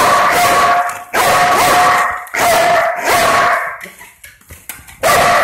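Belgian Malinois watchdog barking loudly at an intruder, in rapid volleys about a second long with short breaks between them. It eases off for about a second near the end, then starts again.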